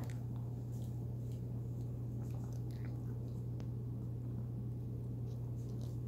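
A steady low hum with faint, scattered clicks and taps of a cockatoo and a parrotlet pecking at rice in a plastic tub.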